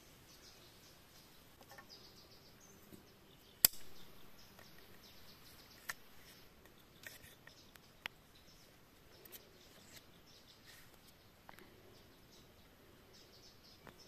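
A knife working green bamboo, splitting and trimming strips: one sharp crack a few seconds in, then a few lighter clicks. Faint bird or insect chirps run underneath.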